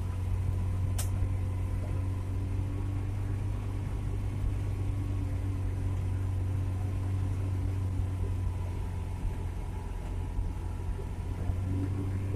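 Suzuki Carry 1.0 pickup's four-cylinder engine droning steadily while driving, heard from inside the cab, under the even hiss of heavy rain. A single sharp click about a second in.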